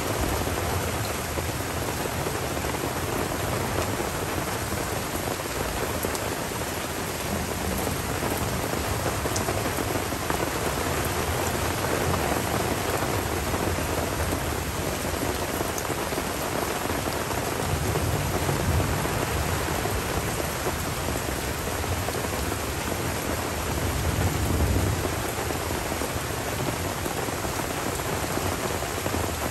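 Tropical summer rain falling steadily on the forest and ground, with low rolls of thunder swelling about two-thirds of the way in and again near the end.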